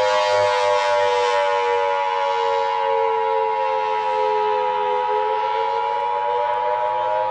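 Federal Signal Thunderbolt civil defense siren sounding a wail: several tones at once, falling slowly in pitch and then rising again about five seconds in.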